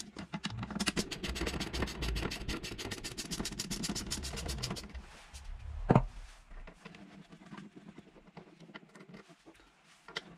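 A ratchet tool clicking rapidly and evenly as it backs out the Torx screws holding the e-bike's battery-compartment lock. The clicking stops after about five seconds, followed by one sharp knock.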